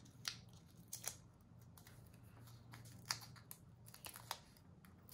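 Foam adhesive pop dots being handled and pressed onto a paper fish cutout by hand: a scatter of small, sharp paper clicks and crinkles, about six of them, over a faint steady low hum.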